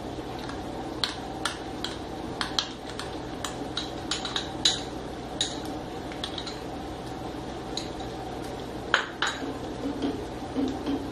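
Metal spoon clinking and scraping against a metal kadhai as cream is spooned into thick tomato gravy and stirred in: irregular clinks, with two louder ones about nine seconds in, over a steady low hum.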